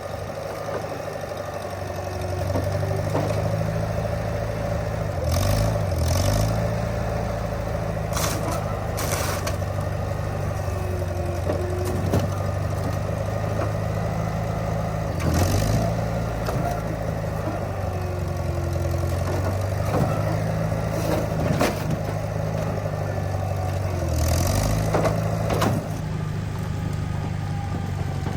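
Track loader's diesel engine running and labouring under changing load, with sharp metal bangs and crunches as it flattens the roof of a Honda Civic coupe body.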